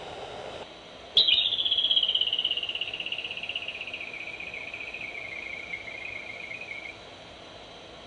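Groundhog (woodchuck) whistling, heard through a baby monitor: a sharp start about a second in, then one long, rapidly warbling high whistle that slowly falls in pitch and fades out over about six seconds.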